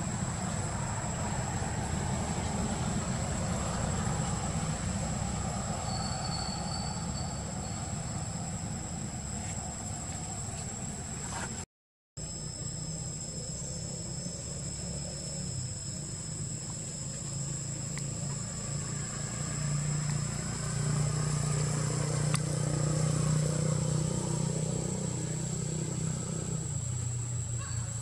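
A steady low mechanical drone, like a motor running, with a thin steady high tone above it. The drone grows louder and fuller for several seconds in the second half, and there is a brief dropout to silence near the middle.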